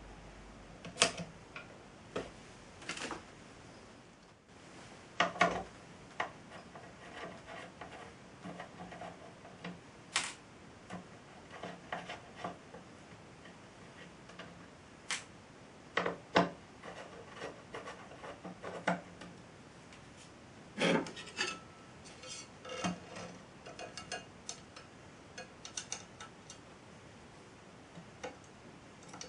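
Desktop 3D printer and small hard parts being worked: an irregular run of sharp clicks and taps with scraping and rubbing between them.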